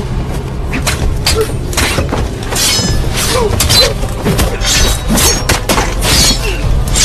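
Film action sound effects: a rapid, irregular series of crashes and shattering impacts over a steady low rumble.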